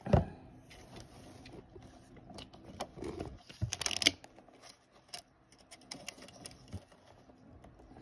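Handling noise from a phone camera being moved against the lantern: a thump right at the start, then scattered light clicks and taps, with a brief patch of rustling about three to four seconds in.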